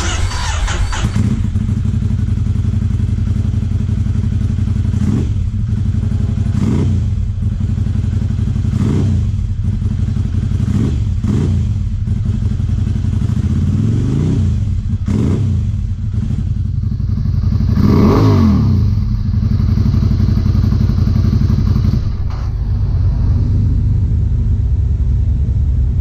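Ducati Scrambler's L-twin engine idling through a newly fitted Delkevic slip-on exhaust, blipped up and back down every couple of seconds. The biggest rev comes about eighteen seconds in.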